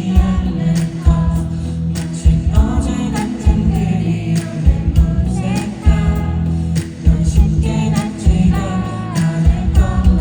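Live concert music: a male singer's voice over band accompaniment, with a steady bass line and regular drum hits, recorded at a loud level from the hall.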